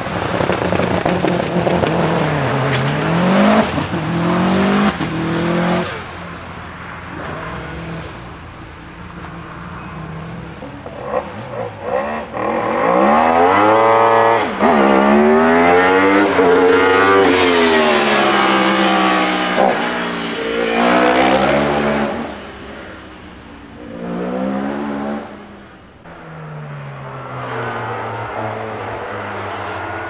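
Single-seater race car engine revving hard and accelerating through the gears. Its pitch climbs and drops back at each upshift, loudest for a long run in the middle, then fading as the car draws away.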